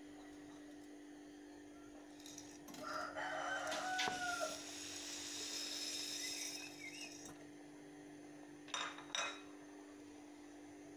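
Dry spaghetti going into a pot of hot water with a hiss lasting a few seconds, while a rooster crows once in the background. Two short knocks come near the end, over a steady low hum.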